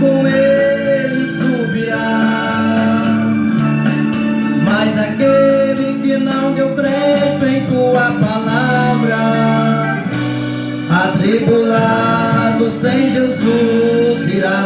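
Live gospel band music with a gliding melodic lead over sustained chords, playing on through the song's closing section.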